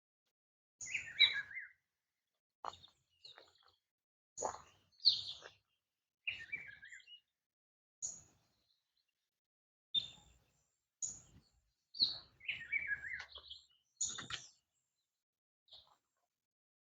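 Songbirds chirping in short separate calls and phrases, a dozen or so spaced a second or two apart, with quiet gaps between them.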